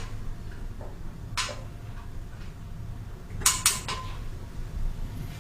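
A few light clacks over a low steady rumble: one about a second and a half in, then a quick run of three around three and a half seconds in.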